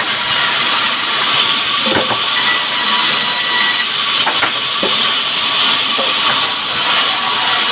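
Band sawmill cutting a log: a loud, steady high hiss from the blade in the wood, with a few light knocks.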